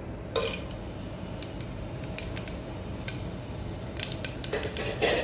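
Whole spices (cinnamon, cloves, cardamom and fennel seeds) sizzling in hot oil in an aluminium pressure cooker, with scattered sharp crackles. There is a burst of crackling just after the start and louder ones about four and five seconds in.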